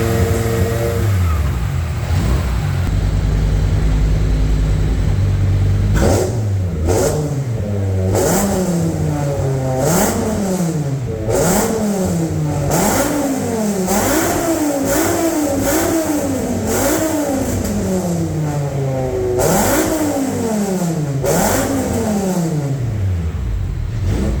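BMW S85B50 V10 engine with a motorsport exhaust idling, then revved in about a dozen quick throttle blips, each rev rising sharply and falling back, before it settles back to idle near the end.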